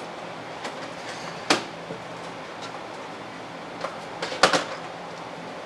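A few sharp clicks and knocks from handling hard plastic and metal parts, the loudest about one and a half seconds in and a close pair near the end, over a steady low hum.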